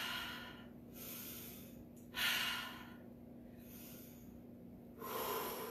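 A woman breathing slowly and deeply, in through the nose and out through the mouth: three loud breathy exhales about two and a half seconds apart, with quieter inhales between them.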